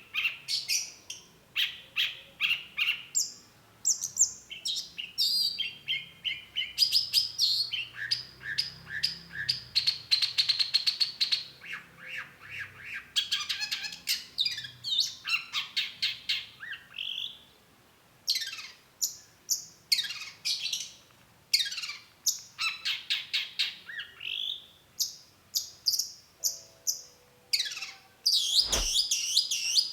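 Long-tailed shrike singing a long, varied song: fast runs of short, repeated chattering notes, and in the second half a series of separate falling notes.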